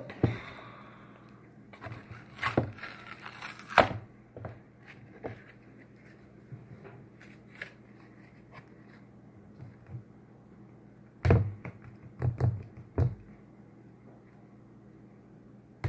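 Scattered knocks, scrapes and handling noises of containers and a bowl being worked while slime is mixed, in two busy spells, over a faint steady hum.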